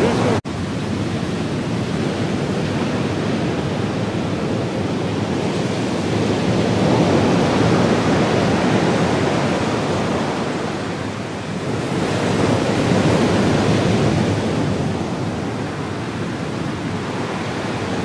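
Ocean surf breaking and washing: a loud, steady rushing that swells and eases every few seconds, with a brief dropout about half a second in.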